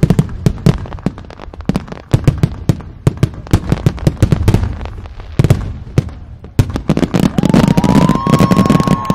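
Display fireworks in a dense barrage: shell after shell bursting in rapid, loud bangs and crackles, thickening into a near-continuous volley in the last couple of seconds with a whistle rising and then held over it. It is the closing finale of the display.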